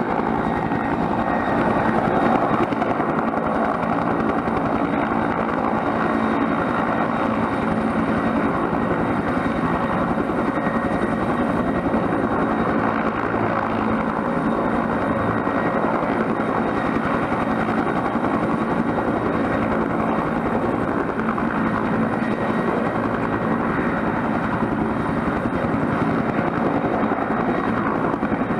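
Bell 212 helicopter's twin turboshaft engines and two-bladed rotor running steadily. It makes a continuous dense noise, with a thin, high turbine whine held at a constant pitch and no change in power through the whole stretch.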